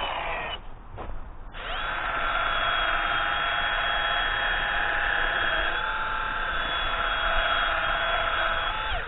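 Handheld angle grinder winding down, then after a brief lull spinning back up and running with a steady high whine. Its pitch sags slightly about six seconds in and again near the end, as it is pressed into steel.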